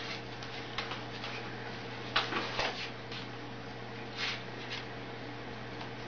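A white cockatoo's beak and feet tapping and scraping on a wooden tabletop: a few scattered light taps, with a quick cluster about two seconds in and another pair about four seconds in, over a steady low hum.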